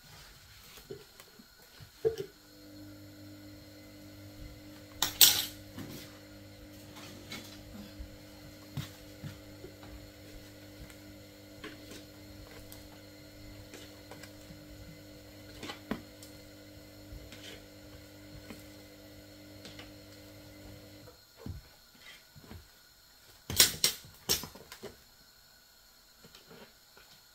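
Kitchen containers and utensils clattering and knocking, with the loudest knocks about five seconds in and again near the end. A steady electrical hum from an appliance starts with a click about two seconds in and stops abruptly after about nineteen seconds.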